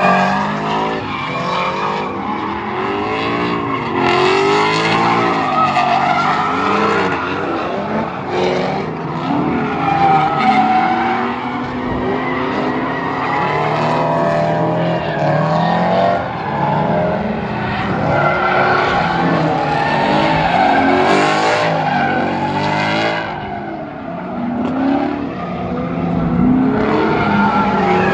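A drift car sliding through a coned course, its engine revving up and down over and over while the rear tyres spin and squeal.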